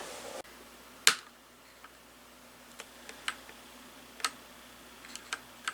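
Plastic keycaps being handled and pressed onto a mechanical keyboard's switches: one sharp click about a second in, then a few fainter ticks.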